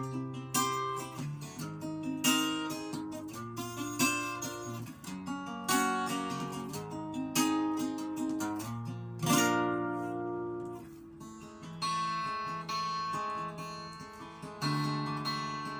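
Martin acoustic guitar playing an instrumental break, strummed and picked chords ringing one after another, with a short lull about ten seconds in.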